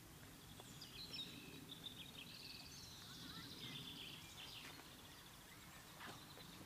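Faint small-bird twittering, a run of high chirps lasting a few seconds, over a quiet outdoor hush.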